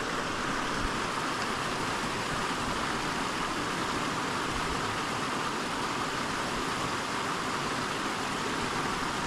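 Small mountain brook running over rocks: a steady rush of moving water.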